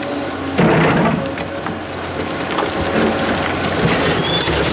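Komatsu PC230-11 hydraulic excavator's bucket scraping and raking through a stony earth bank, crunching soil and stones, over the steady running of its diesel engine. A loud crunch comes about half a second in.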